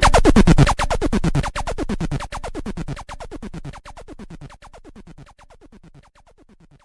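DJ sound effect: a rapid run of electronic zaps, each falling in pitch, repeating several times a second in an echo that fades out over about seven seconds.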